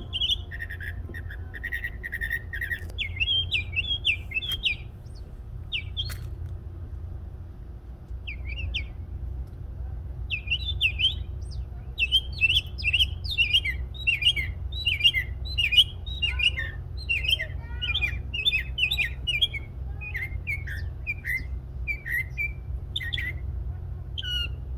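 Two small songbirds singing: quick runs of high chirps and sweeping whistled notes, sparse at first and a dense, nearly unbroken stream from about halfway in, over a steady low rumble.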